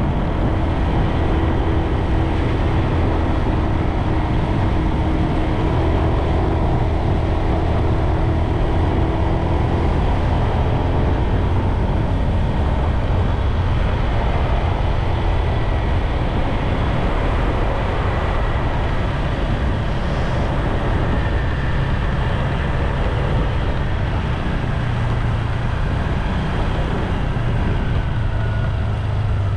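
Continuous riding noise from a bike moving along a paved road: a steady low rumble with a faint hum running through it.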